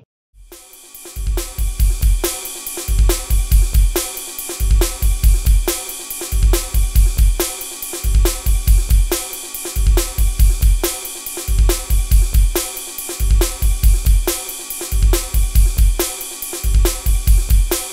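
Outro music: a loud, driving drum-kit beat with a heavy bass drum, snare and cymbals in a steady fast rhythm, starting about half a second in.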